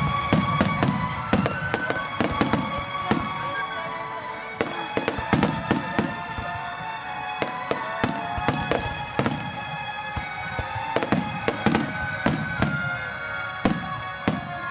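Aerial fireworks bursting in a dense barrage: many sharp bangs and crackles, several a second, with music playing underneath.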